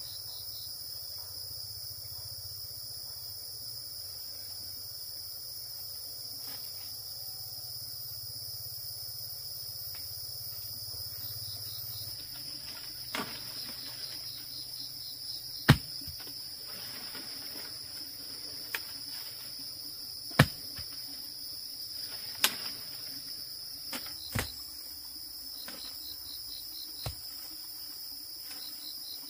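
Steady high-pitched insect chorus with a rapid pulsing trill. About halfway through, a string of about seven sharp knocks begins, spaced a second or more apart.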